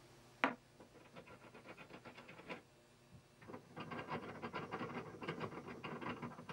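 Metal parts of a reloading press being handled: a sharp metal clack about half a second in, then runs of quick small clicks and rattles, densest in the second half, as a part at the top of the press is worked by hand.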